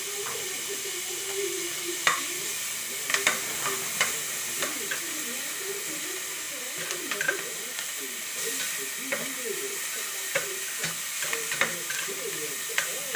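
Garlic and onion sautéing in a pan with a steady sizzle, while a utensil stirs them, knocking and scraping against the pan in irregular sharp clicks.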